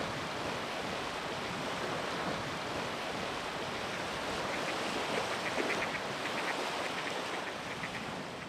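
Small waves lapping and washing on a sandy lakeshore with wind. About halfway through, mallard ducks give a run of short, rapid quacks. The sound fades out near the end.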